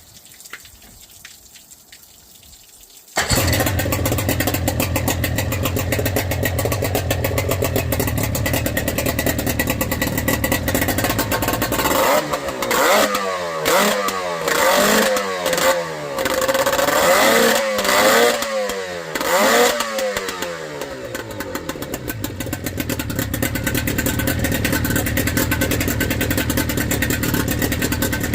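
An M40C engine fitted with a twin-carburettor conversion starts about three seconds in and idles steadily. It is then blipped through a run of quick revs, each rising and falling, before settling back to idle.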